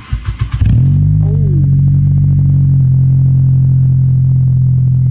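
Honda Civic engine cranked on the starter for a moment, catching about a second in and settling into a loud, steady idle through a newly installed aftermarket exhaust.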